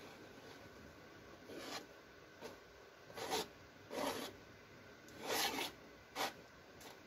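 A palette knife scraping wet acrylic pour paint across a stretched canvas, in about six short, irregular scratchy strokes. The loudest comes a little past the middle.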